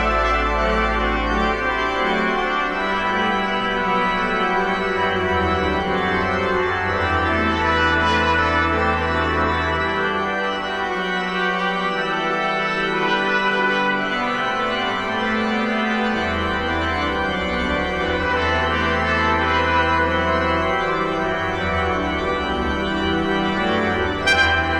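Organ playing slow, sustained chords, with deep pedal bass notes that drop out and come back, in a requiem for trumpet and organ. A trumpet comes in sharply near the end.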